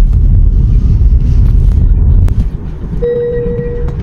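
Low rumble of tyre and wind noise inside a moving Tesla's cabin, loud for the first two seconds and then dropping after a single click. About three seconds in, a steady tone sounds for about a second.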